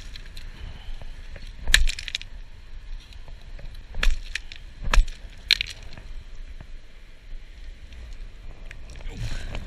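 Several sharp stone-on-stone knocks and clacks on a pebble beach, about two, four, five and five and a half seconds in, over low handling rustle, as a hand-held stone and a caught kahawai are worked among the pebbles.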